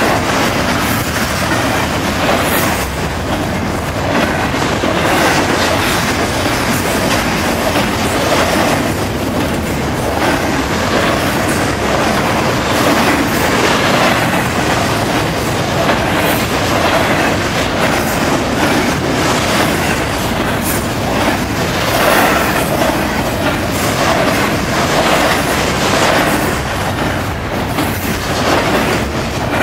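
Double-stack container well cars of a CN freight train rolling steadily past close by: a continuous rumble of steel wheels on rail, with irregular clickety-clack as the wheels pass over joints.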